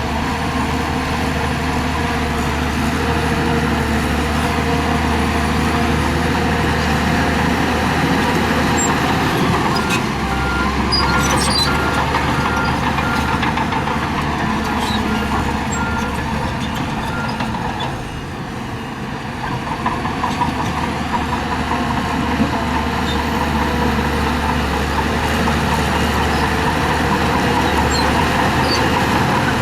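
Heavy diesel earthmoving machinery running steadily under work. A reversing alarm beeps over and over from about a third of the way in to just past the middle.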